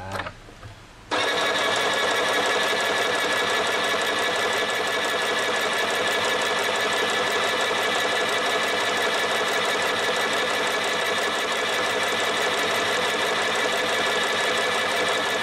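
UKICRA UFR-611/613 household sewing machine running at an even speed, stitching through a zipper and fabric; it starts suddenly about a second in.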